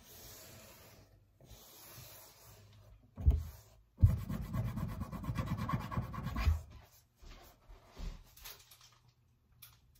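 Rubbing and scraping close to the microphone as things are handled and shifted on a kitchen counter: a knock about three seconds in, a sharp loud knock at four seconds followed by a couple of seconds of dense scraping and rustling, then a few lighter knocks.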